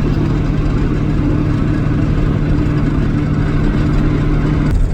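Vehicle engine and road noise while driving at steady speed, a constant low drone. Just before the end the drone changes abruptly to a lower pitch.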